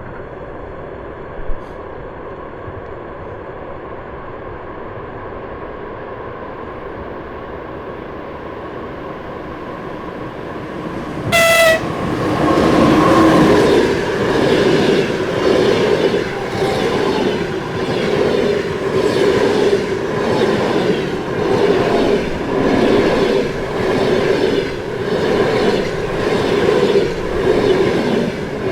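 Passenger train hauled by an EP2K electric locomotive approaching with a rising rumble, giving a short horn blast about eleven seconds in, then passing close by with a rhythmic clatter of carriage wheels over the rail joints.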